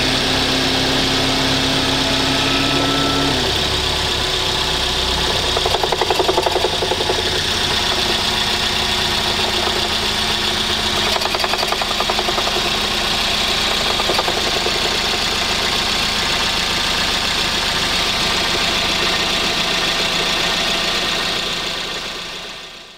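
Suzuki Swift engine running with the bonnet open, warming up after a cold start, with a fast clattering rattle and a metallic scraping mixed into it; the clatter swells about six seconds in and again later. The sound fades out at the very end.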